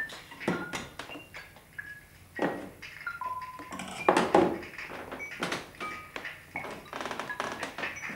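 A plate and cutlery set down on a table-top, knocking and clattering, loudest about four seconds in, among a run of short, high pitched notes of music.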